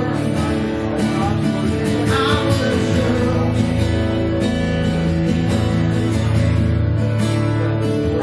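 Music with guitar chords and a steady beat, a voice singing at times.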